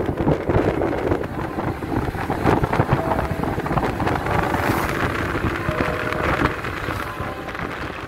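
Wind buffeting the phone's microphone, with road and engine noise from a moving vehicle.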